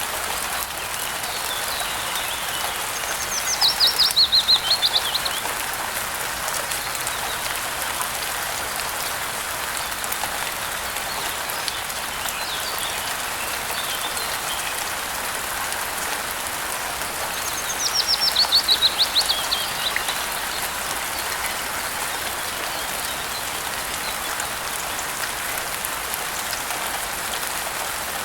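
Steady rain with a bird singing twice over it, each song a rapid trill that falls in pitch and lasts about two seconds.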